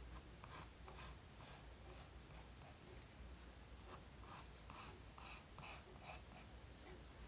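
Pencil scratching faintly across mixed media sketchbook paper, sketching an egg outline in short strokes, about two a second.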